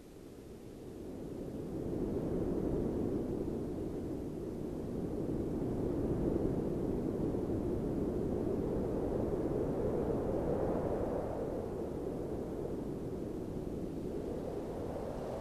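Wind rushing steadily, fading in over the first two seconds, with slow swells and a fuller gust about ten seconds in.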